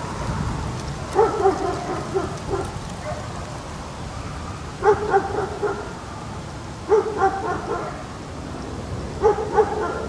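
A street dog barking in four short bursts of two to four barks each, over a steady low background noise.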